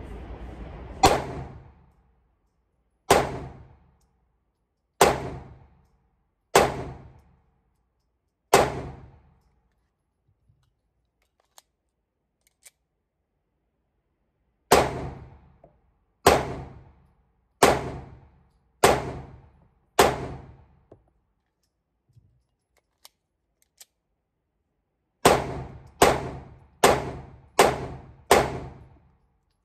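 Sig Sauer P365 X-Macro 9mm pistol firing fifteen shots, each with a short echo off the range booth: five slow shots about two seconds apart, five more a few seconds later, then five in quick succession near the end.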